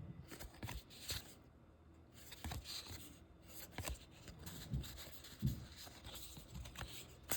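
Faint, scattered rustles and light taps of trading cards and their packaging being handled.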